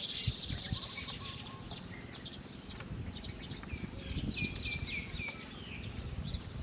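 Small wild birds chirping, with a quick run of short falling notes around the middle, over low rustling.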